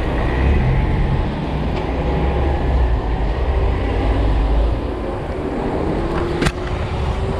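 Wind rumbling on the microphone of a camera on a moving bicycle, over the steady noise of car traffic around it. The wind rumble eases about two thirds of the way through, and there is one sharp click near the end.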